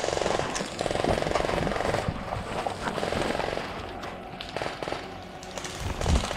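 Airsoft guns firing rapid full-auto bursts of fast, even ticks, the first in the opening second and another around three seconds in, with brush rustling close by.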